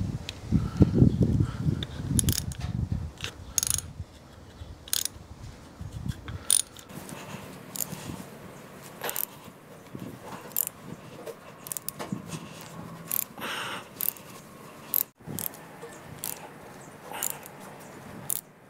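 A helicoil tap being turned by hand with a T-handle into a drilled-out 3/8-16 intake bolt hole in a small-block Chevy 327 cylinder head, cutting new threads for a thread insert. There is a continuous rough noise for about the first six seconds, then scattered sharp clicks.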